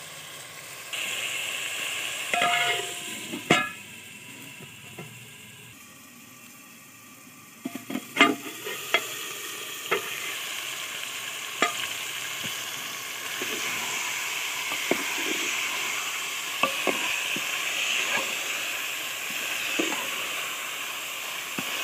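Mutton sizzling as it fries in its spice paste in an aluminium pot. A metal lid clanks and rings on the pot a few seconds in, the sizzle drops for a few seconds, and from about eight seconds a metal spoon clinks and scrapes against the pot as the meat is stirred over a steady sizzle.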